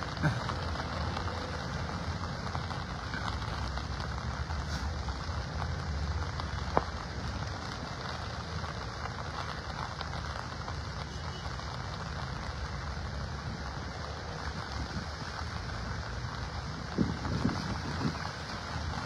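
Steady rain falling, an even hiss over a low rumble, with a single sharp click about seven seconds in and a few small knocks near the end.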